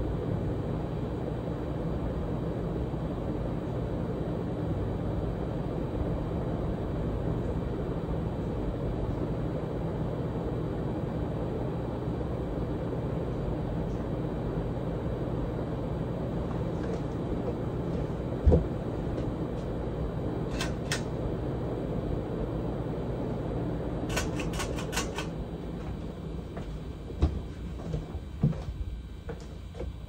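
52-inch Hunter Original ceiling fan with a PSC motor, five blades fitted, running steadily: an even rush of moving air with a low motor hum. A few short clicks and knocks come in the last third, and the sound eases off slightly near the end.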